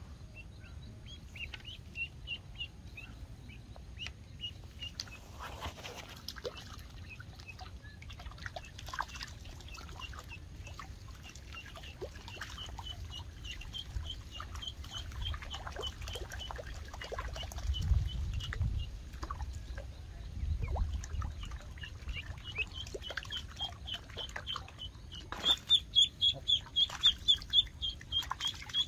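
A duckling peeping over and over in short, high calls, fainter at first and much louder in the last few seconds.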